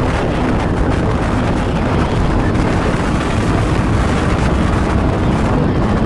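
Strong storm wind buffeting the camera microphone: a loud, steady rumbling noise, heaviest in the low end.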